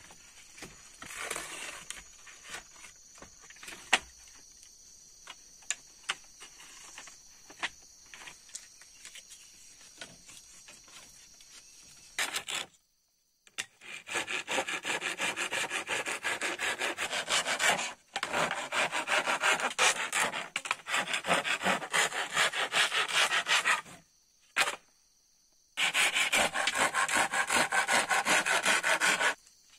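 Hand pruning saw cutting through a split bamboo half-pipe in fast back-and-forth strokes: one run of about ten seconds, a short pause, then a second run of about four seconds. Before the sawing, about twelve seconds of quiet with scattered light clicks.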